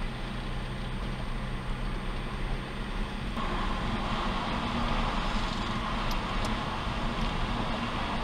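A car being driven, heard from inside the cabin: steady engine hum with tyre and road noise. About three seconds in the road noise grows louder and stays so.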